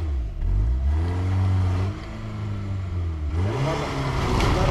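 Small Suzuki 4x4's engine revving hard as it drives at a muddy uphill trail, the revs rising and falling with a dip about two seconds in. Near the end a harsh rush of spinning tyres and flung mud joins the engine as the revs climb again.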